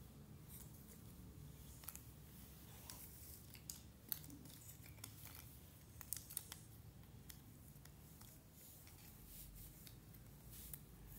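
Cardboard jigsaw puzzle pieces being handled and pressed into place: quiet, scattered light clicks and taps, the sharpest about four seconds in and a few more around six seconds, over a faint low room hum.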